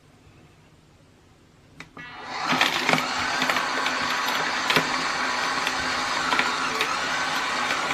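Portable electric coffee grinder with a ceramic conical burr switched on after a click about two seconds in, its motor coming up to speed and then running steadily while grinding coffee beans, with scattered sharp cracks.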